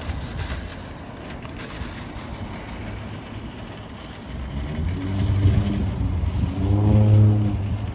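Empty metal shopping cart rolling across asphalt, its wheels rattling with a low rumble. The rumble grows louder about four seconds in as the cart is pushed faster, with a humming drone from the wheels that swells twice.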